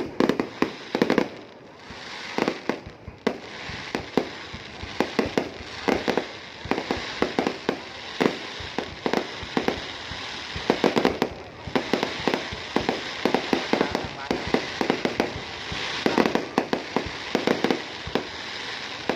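Aerial fireworks display: dense, overlapping bangs and crackling shell bursts coming in clusters every second or two.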